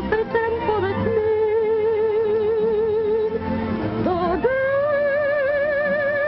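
A woman singing a long, wavering held note over band accompaniment, then sliding up to a higher held note about four seconds in.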